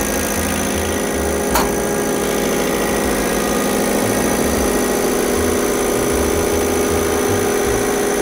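A Bosch diesel injection-pump test bench running steadily, driving an in-line injection pump at about 800 rpm on full-load stop while the stroke counter runs to 1000 strokes for an equal-delivery check. A single sharp click sounds about one and a half seconds in.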